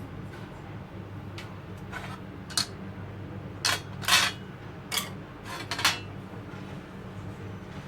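Kitchen utensils and dishes clattering: several short clinks and scrapes between about two and six seconds in, over a steady low hum.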